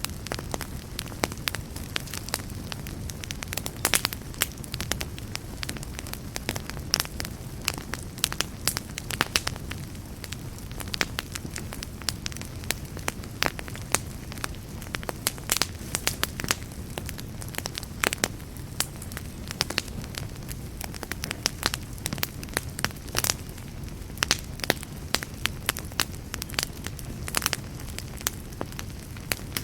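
Campfire burning with a steady low rumble and frequent sharp, irregular crackles and pops of the wood.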